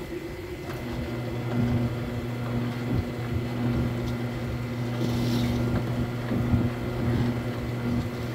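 Electric fish-slicing machine for bone-in sekkoshi switched on about a second in, its motor running with a steady hum. A brief hiss comes about five seconds in.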